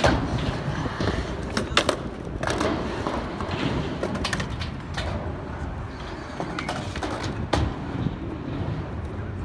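Skateboard rolling through a ramp bowl, its urethane wheels giving a steady rumble, with several sharp clacks as the trucks hit the metal coping.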